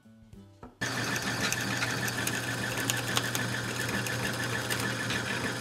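Drill press running and boring a hole into a wooden board, a steady motor sound that starts abruptly about a second in.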